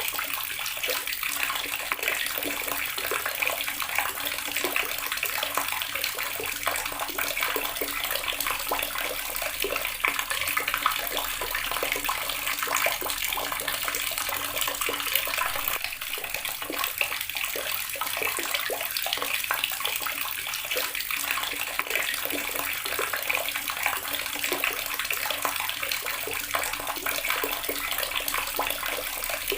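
Water running steadily from a tap and splashing into the water below, a dense, unchanging splashing hiss.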